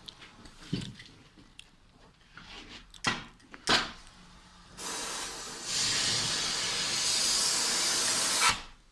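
A couple of sharp knocks, then a gas torch hissing steadily for about four seconds, getting louder partway through, before cutting off suddenly.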